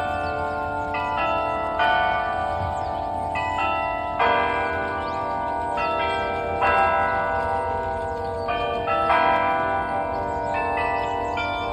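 The Delacorte Musical Clock's bells playing a slow tune, a new bell note struck about every second or so, each ringing on under the next.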